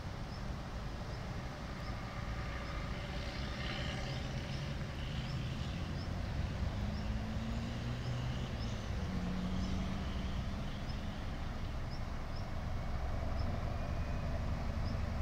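Distant SM42 diesel locomotive's engine pulling away with a train, a low steady rumble that grows slowly louder as the locomotive comes closer. A faint high chirp repeats about once a second over it.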